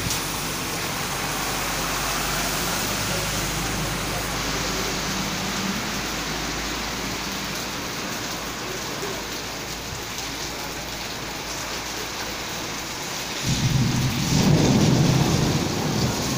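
Heavy rain falling steadily. About three-quarters of the way through, a low rumble of thunder rolls in and builds to the loudest point near the end.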